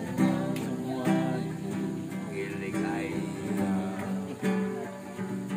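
Acoustic guitar being strummed, a run of chords played at an even pace.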